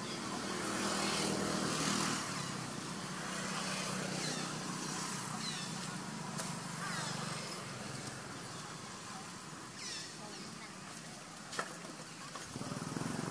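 A small motorbike engine running steadily at idle, with people talking in the background and brief high chirps scattered through; a single sharp click near the end.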